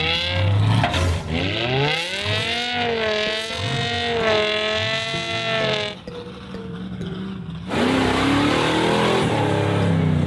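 BMW M5's V10 engine revving hard, its pitch rising and falling as the throttle is worked. The revs drop about six seconds in, then the engine runs loud again with a rougher rushing noise.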